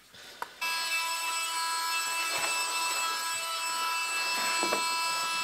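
A small electric motor running steadily with a high whine of several fixed tones as sawdust is cleared off a workbench. It starts abruptly about half a second in.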